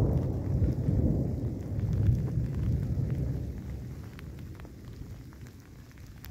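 Thunder rumbling low and long, then dying away over the last few seconds.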